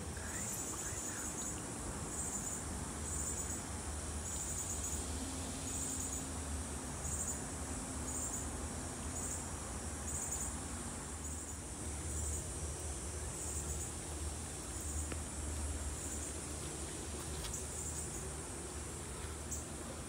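An insect chirping in short, high-pitched pulses about once a second, dying out about halfway through, over a steady low rumble.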